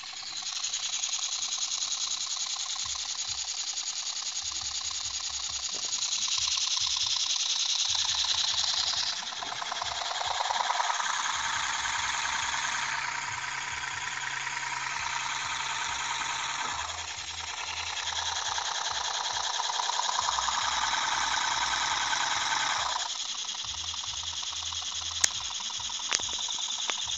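Home-built electric massage machine, a small motor in an aluminium housing driving a screw-tipped head, running with a dense mechanical buzz whose tone changes several times. Near the end a few sharp ticks sound as the tip is pressed into paper towel.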